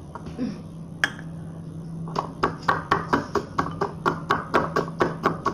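Metal spoon clinking against a glass bowl while Oreo biscuits are mashed into milk, a single clink about a second in, then a steady run at about four clinks a second from two seconds in. A low steady hum runs underneath.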